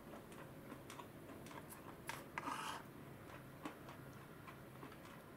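Faint scattered clicks and rubbing of a wooden spoon against a wooden bowl of salmon roe and rice. A brief louder scrape and a few sharper clicks come a little over two seconds in.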